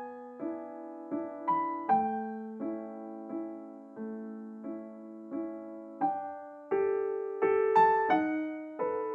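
Solo piano music: notes and chords struck at an unhurried pace, each ringing and fading before the next.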